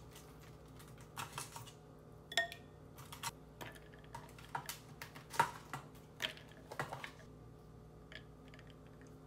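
Ice cubes knocked out of an ice tray and dropped into a glass bowl of broth: a run of irregular light clicks and knocks, several a second, thinning out near the end.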